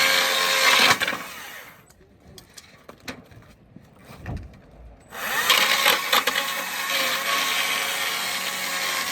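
Bushlander HM122 portable sawmill running under load as it saws a log, stopping about a second in. A quieter gap with a few knocks follows, then the mill runs loud again from about five seconds in.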